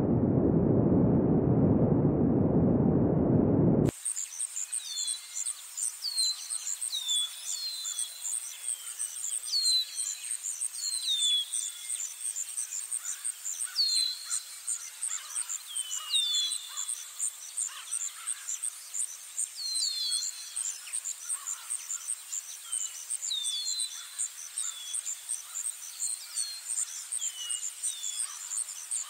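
A loud low rumbling noise that cuts off suddenly about four seconds in. After it, small birds chirp, in repeated short downward-sweeping chirps, over a steady, fast, high-pitched pulsing trill.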